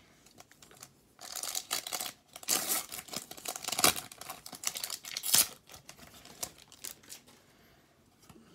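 Foil wrapper of an Upper Deck hockey card pack crinkling and tearing as it is opened, in a run of loud crackles with the sharpest ones about two thirds of the way through, then fading to faint card handling.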